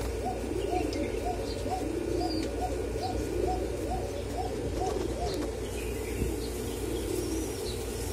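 Several domestic pigeons cooing together in a cage: low, overlapping, rolling coos throughout, with faint high chirps now and then.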